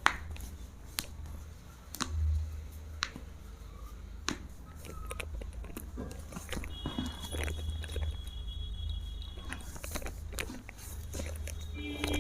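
Sharp cracks and pops of joints giving way during a chiropractic adjustment, the loudest right at the start and others about a second apart, over a low steady hum.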